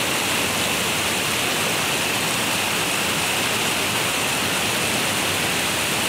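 Small waterfall pouring into a rocky river pool: a steady, even rush of falling water.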